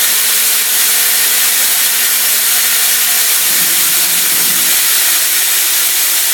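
Haas CNC mill cutting 30% silicon-carbide-reinforced aluminium with a CVD diamond end mill under coolant: a loud, steady hiss of coolant spray and cutting, with a faint steady hum that changes pitch about three seconds in.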